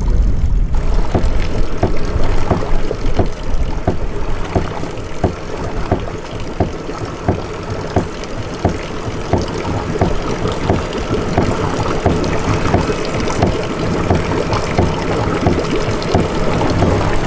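Motorboat running on the lake: steady engine rumble and water noise, with evenly spaced knocks about twice a second.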